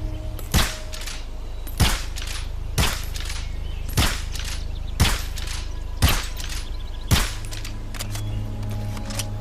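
Pistol gunshot sound effect, seven single shots at about one a second, each with a short ringing tail, over a steady low hum.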